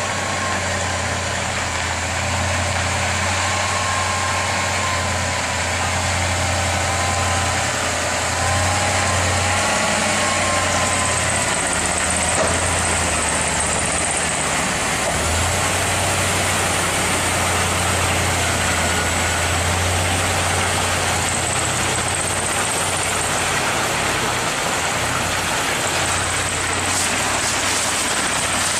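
Large truck engine running steadily: a constant low drone under a wide, even noise.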